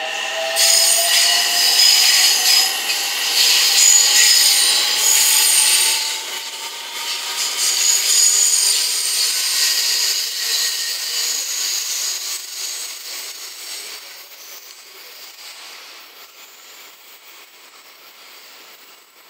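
JR West 227 series electric train passing, its VVVF inverter whine rising slowly in pitch as it picks up speed, with high-pitched steel wheel-on-rail noise over it; the sound fades away over the last several seconds as the train moves off.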